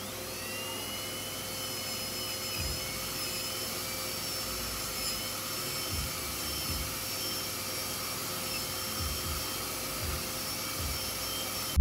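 High-speed dental drill whining as it spins up and grinds teeth down into small stubs to take crowns, over a steady hiss of suction.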